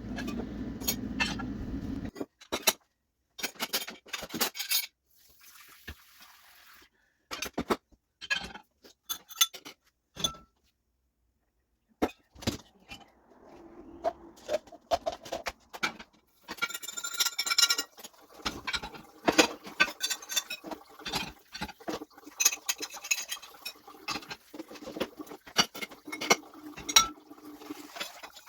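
Dishes, glasses and cutlery clinking and knocking as they are taken out, set aside and loaded into a dishwasher, in scattered separate clinks at first, then denser clattering in the second half.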